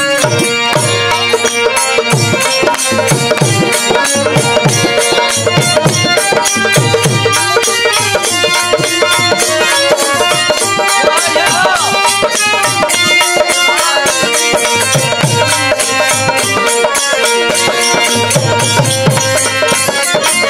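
Instrumental folk devotional music: a harmonium holding sustained chords over a fast, steady hand-drum rhythm, with quick metallic strokes like small cymbals.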